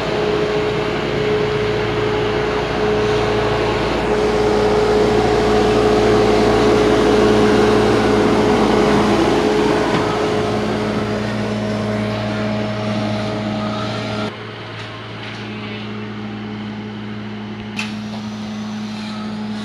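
Motor vehicle engine running steadily, with a constant hum over a low rumble. The rumble drops away sharply about fourteen seconds in, and a single short click follows a few seconds later.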